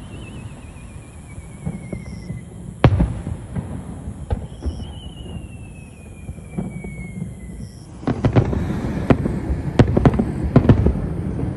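Fireworks display: one sharp bang about three seconds in and scattered pops, then a dense run of crackling bangs from about eight seconds. Twice, a faint wavering whistle falls slowly in pitch.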